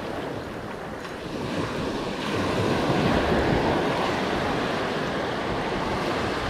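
Small surf breaking and washing up the beach, with wind on the microphone. The wash swells louder about two seconds in.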